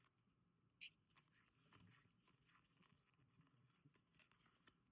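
Near silence, with a few faint clicks of trading cards being handled; the clearest comes about a second in.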